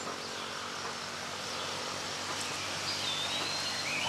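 Outdoor treetop ambience: a steady hiss of background noise, with a bird's whistled call about three seconds in, a short rising note then a held level whistle lasting about a second.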